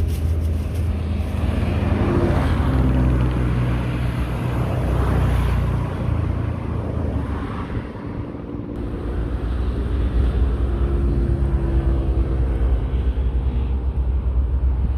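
Road traffic passing on a main highway: vehicle engines running by, the sound dropping away a little past halfway, then building again as more vehicles come.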